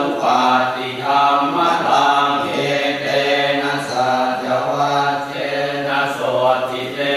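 Thai Buddhist chanting (suat mon), sung in a low near-monotone that moves in small steps, syllable after syllable in a steady rhythm.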